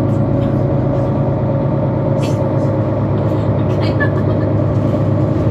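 Mercedes-Benz Citaro C2 city bus under way, its diesel engine running steadily, with a few short rattles and clicks over the top.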